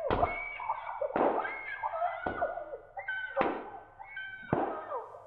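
Heavy thuds, each followed by a short wavering cry, as of someone being struck again and again.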